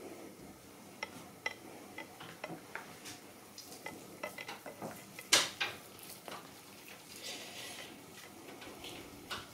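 Scattered light clicks and taps of hand-handling in the kitchen: fingers crumbling feta from its plastic tray and scattering it over a quiche in its metal tart tin. One sharp knock stands out about five seconds in.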